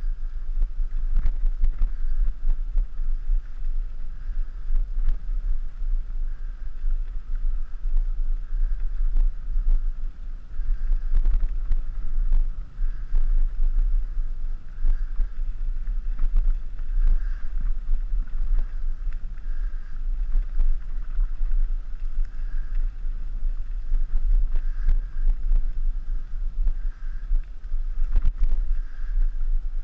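Mountain bike rolling over a dirt forest track, heard through a mounted action camera: a steady low rumble of wind and vibration on the microphone with frequent knocks from bumps in the track. A faint swishing swells about once a second.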